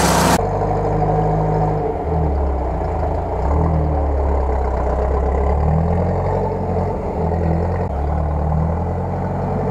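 UAZ-469 off-road vehicle's engine labouring through deep mud, its note rising and falling several times as the throttle is worked.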